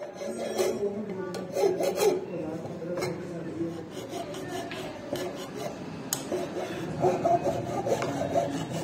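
Repeated abrasive rubbing and scraping strokes against a steel knife blade, with a few light clicks.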